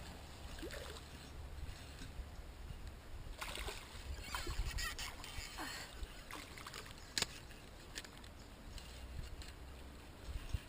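River water running, with rustling and a few sharp clicks; the loudest click comes about seven seconds in.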